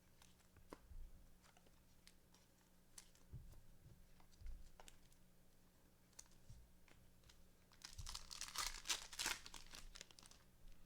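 Faint clicks of trading cards being handled and shuffled, then, from about eight seconds in, a couple of seconds of crinkling and tearing as a foil card-pack wrapper is ripped open.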